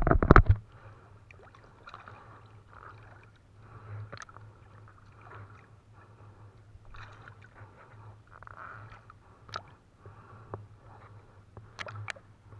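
Water sloshing and dripping as a three-layer trammel net is hauled by hand out of a river beside a small boat, with a few sharp clicks. A burst of loud low thumps comes at the very start.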